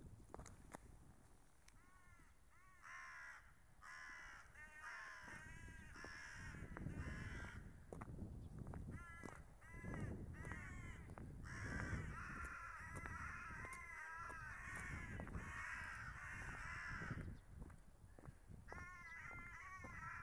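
Crows cawing over and over, in quick runs of harsh caws, with a low rumble underneath.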